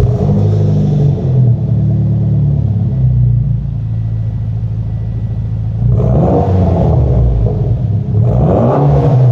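Turbocharged 2.0-litre 4B11T four-cylinder of a 2011 Mitsubishi Lancer Evolution GSR, breathing through an ETS aftermarket exhaust, idling and revved in short blips: once at the start, again about six seconds in, and once more near the end.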